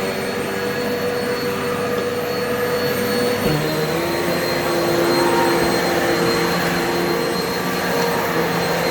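Upright vacuum cleaner running steadily with a high motor whine. A little over three seconds in there is a brief knock, and the pitch of the motor's hum shifts slightly.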